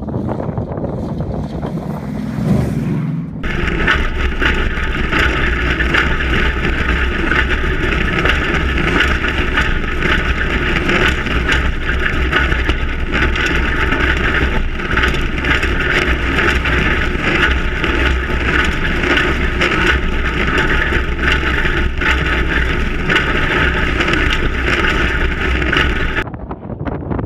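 Off-road truck driving fast down a rough desert dirt track, heard from a camera mounted on the vehicle: a steady engine rumble and wind rush, with a constant clatter of jolts from the suspension working over the bumps. For the first three seconds the sound is quieter, with a truck approaching over whoops.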